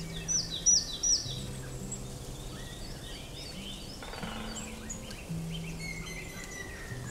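Woodland birds chirping and calling, with three loud, sharp chirps falling in pitch about a second in. Under them runs soft background music of held low notes.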